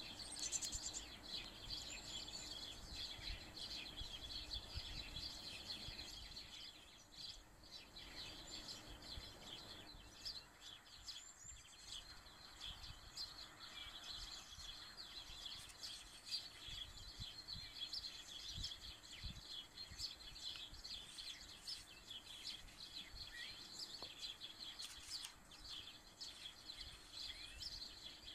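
Faint, continuous chatter of many small birds chirping, with a low rumble beneath.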